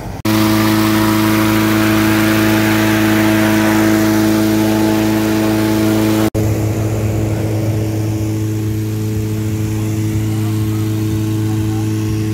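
Steady, loud mechanical drone of hot air balloon launch equipment: a constant engine-like hum of several held pitches under a hiss. It drops out for an instant about halfway through and comes straight back, with less hiss.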